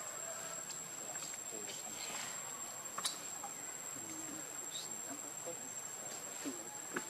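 Steady high-pitched insect drone from the surrounding forest, one unbroken tone, with a sharp click about three seconds in and another near the end.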